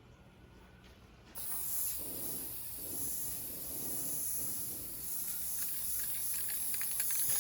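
Aerosol can of glossy black spray paint hissing in a long continuous spray, starting about a second and a half in.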